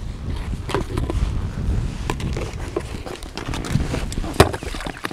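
Small boat being paddled and manoeuvred: irregular knocks of the paddle and gear against the hull, with rustling, and one sharp knock about four seconds in.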